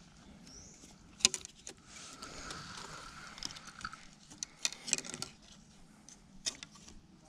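Handling noise: scattered sharp clicks and light rustles, a single one about a second in and a cluster near the middle.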